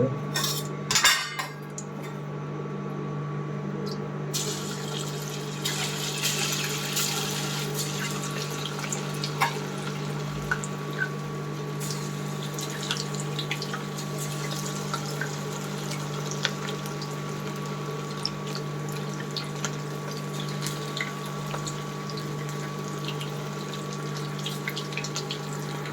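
Marinated chicken pieces going into hot oil with a few clicks, then deep-frying with a steady sizzle full of small crackling pops. A steady low hum runs underneath.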